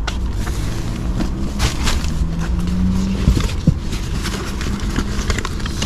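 Rustling and scattered knocks of a hand rummaging among bags in a car's rear footwell for a charging adapter, over a steady low rumble.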